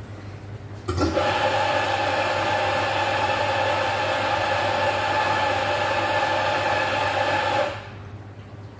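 A small electric motor appliance runs steadily for about seven seconds, starting abruptly about a second in and cutting off near the end.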